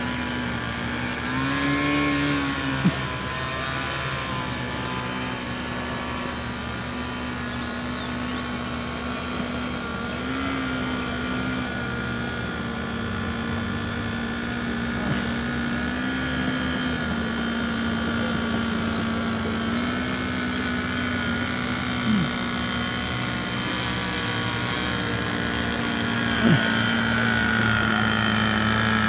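Small fuel-burning engine of a remote-controlled airship buzzing steadily in flight, its pitch rising slightly now and then as the throttle shifts. A few short knocks are heard, two of them near the end.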